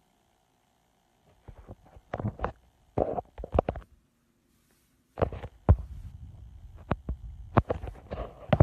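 Slime being squeezed and poked: wet squelches and sharp popping clicks in two bursts, the first starting about a second in and the second after about five seconds.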